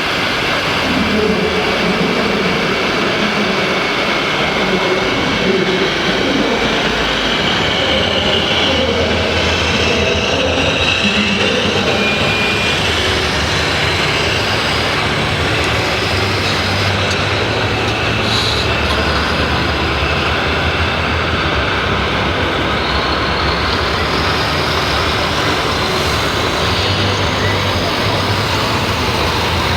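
Radio-controlled model construction machines and trucks running together: a steady, dense mechanical whirr with whining electric motors and a low drone that swells and fades.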